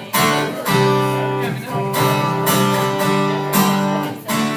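Acoustic guitar strumming chords: the instrumental introduction of a song, before the vocal comes in.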